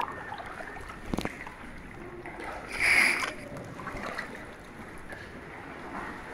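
Kayak paddling on still water in a rock gorge: a paddle blade splashes into the water about three seconds in, over a faint steady lapping and sloshing. A single sharp knock about a second in.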